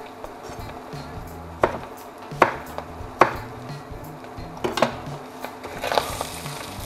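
Kitchen knife chopping tomatoes on a wooden cutting board: about five sharp knocks, roughly a second apart. Near the end a spoon stirs ground meat frying in a steel pot, with a sizzle and a knock of the spoon on the pot, over background music.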